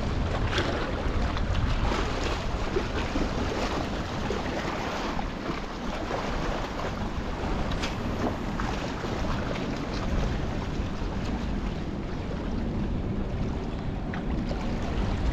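Wind buffeting the microphone over the steady wash of surf on jetty rocks.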